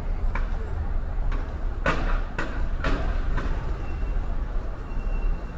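A car driving in city traffic, with a steady low road rumble. Around the middle come about six short sharp knocks, roughly half a second apart.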